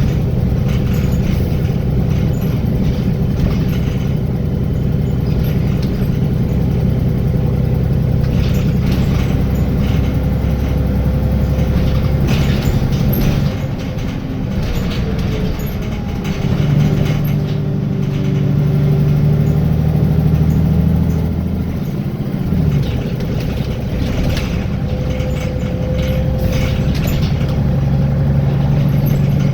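Wright Gemini 2 VDL DB300 double-decker bus heard from inside the saloon: its diesel engine and transmission run on, with the engine note shifting and gliding in pitch about halfway through, then dropping briefly and picking up again. Intermittent clicking and rattling sounds through it.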